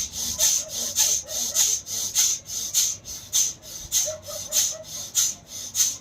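A person breathing hard and fast in and out as a yogic breathing exercise, a hissing breath in and a breath out about every 0.6 seconds, in an even rhythm.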